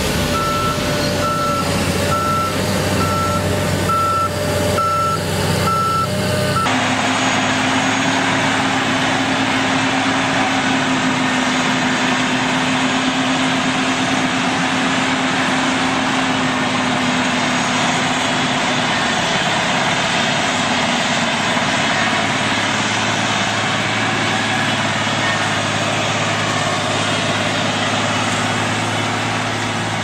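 Diesel engine of a John Deere 764 high-speed dozer running, with its reversing alarm beeping steadily. About seven seconds in, the sound changes abruptly to the steady engine of a rubber-tracked earth scraper on the move.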